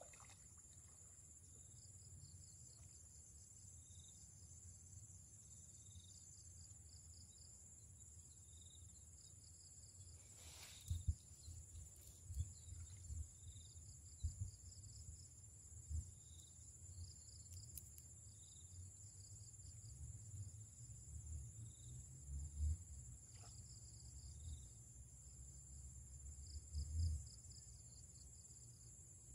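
Crickets and other insects trilling steadily, with a short chirp repeating every two seconds or so. Low dull thumps and rumbles come and go through the second half and are the loudest sounds.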